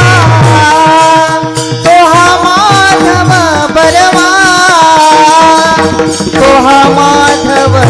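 Marathi kirtan devotional music: a voice carrying a long, gliding melodic line over steady held accompaniment tones, with hand-drum strokes that thin out in the middle and pick up again near the end.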